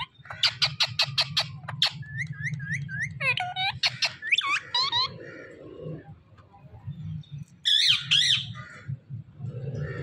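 Rose-ringed parakeet calling: a rapid run of sharp repeated calls, then a few short rising chirps and more calls, with a harsh high squawk about eight seconds in.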